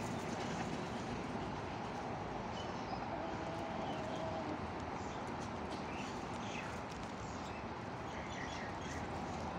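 Faint scattered bird calls over a steady background hiss.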